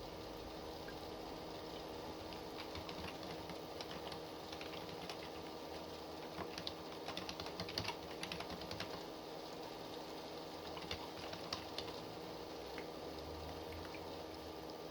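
Typing on a computer keyboard: irregular runs of keystroke clicks, busiest through the middle with short pauses between runs and a few more keystrokes later. A faint steady hum sits underneath.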